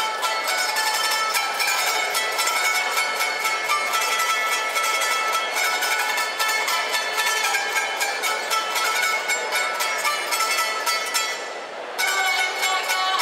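Solo small plucked string instrument played with rapid, even picking, a folk tune accompanying dances from Lika. The playing breaks off briefly near the end and then starts again.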